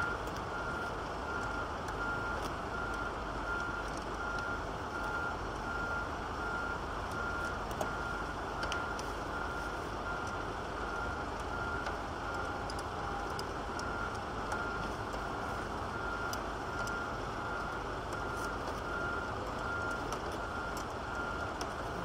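A high electronic beep repeating at an even, quick pace over a steady low noise, with a few faint metallic clicks of hand-tool work.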